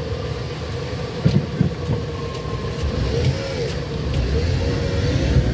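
Car driving steadily along a road: constant engine and tyre rumble, with a few light clicks about a second to four seconds in.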